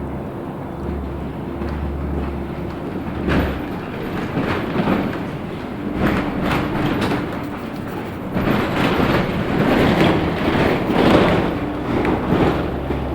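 Interior of a LiAZ 6213.65 articulated city bus on the move: a low, steady engine drone under repeated knocks and rattles from the body, heaviest and loudest about eight to twelve seconds in.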